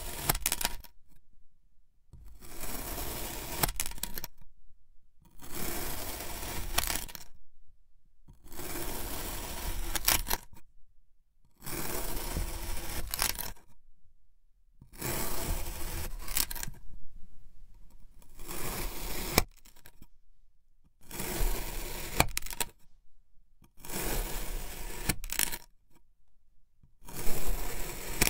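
Packed kinetic sand being sliced with a plastic blade: about ten separate cuts, each a grainy, crackly rasp lasting a second or two, with short pauses between them as the blade is reset.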